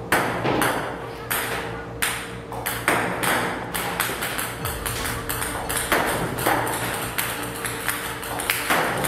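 Ping-pong balls fired by a table tennis robot, clicking sharply as they bounce on the table and strike the net, about two a second in an irregular run, with music in the background.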